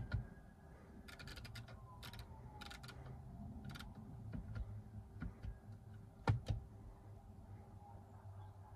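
A few sharp clicks over a low steady hum in a car's cabin: one click at the start and a quick double click about six seconds in, with faint light ticking in between.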